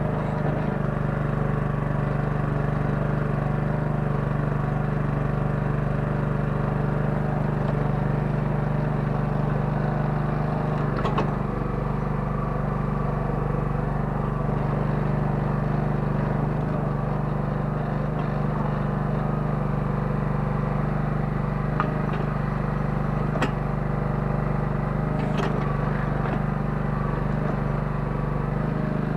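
Kellfri 9 hp towable mini excavator engine running steadily under hydraulic work, with a few faint clicks and knocks.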